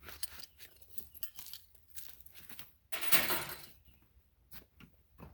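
Hands handling dog-proof raccoon traps and bait: scattered small clicks and rattles, with a short, loud rustling burst about three seconds in.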